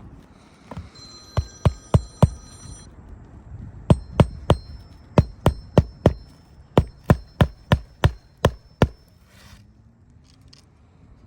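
Hand hammer driving roofing nails into an asphalt shingle: a few blows, a short pause, then a run of about fourteen blows at roughly two to three a second, each with a short metallic ring.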